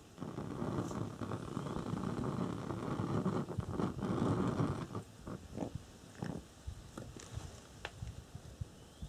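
Rushing noise of the preheating flame at the burner of a Coleman 288A700 two-mantle gasoline lantern. It starts suddenly and stops about five seconds in, followed by a few sharp clicks and knocks as the preheating cap is lifted off and the lantern is handled.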